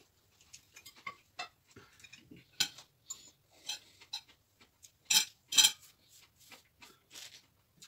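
Cutlery and dishes clinking at a dinner table: scattered light clicks and taps of utensils against plates and bowls, with two louder clinks a little after five seconds in.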